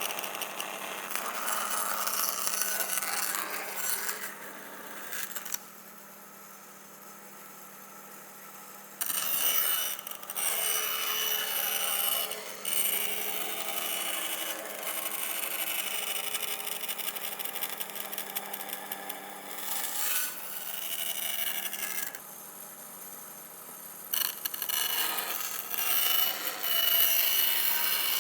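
Bandsaw running and cutting plywood, a dense rasping saw noise over a steady motor hum, with two quieter spells, one about six seconds in and one about 22 seconds in.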